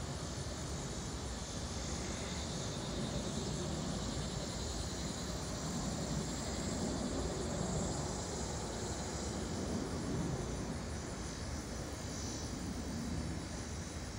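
Distant Boeing 737-700 airliner on approach passing overhead. The rumble of its CFM56-7B turbofan engines swells gently over several seconds, then slowly fades.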